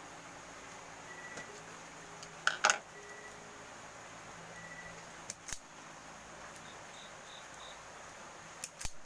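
Hand wire stripper snapping on the ends of electrical wire: three short groups of sharp clicks a few seconds apart, over a steady low hiss.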